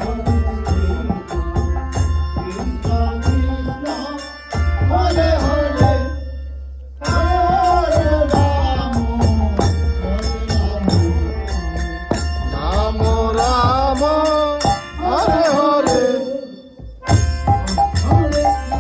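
Hindu devotional song (kirtan-style): a sung melody over hand percussion and a deep, steady bass beat. The music drops away briefly twice, a little after six seconds and again around sixteen seconds.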